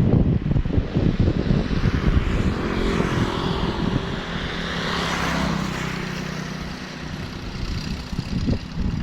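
A small engine running steadily over a heavy low rumble; its hum stands out most clearly in the middle of the stretch.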